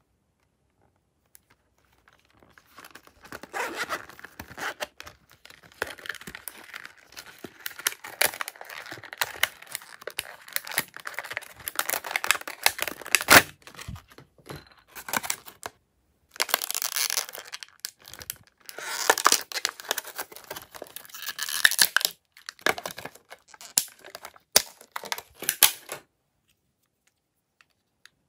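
Crinkling, rustling plastic packaging being handled and pulled open while a children's makeup set is unpacked from its clear plastic case and tray, with small clicks of the plastic pieces. It comes in irregular handfuls, with denser rasping stretches past the middle, and stops a couple of seconds before the end.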